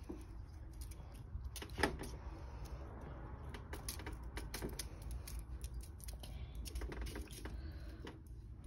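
A crinkly sparkly wand toy rustling and crackling in irregular bursts as a cat bats and grabs at it, with one louder knock about two seconds in.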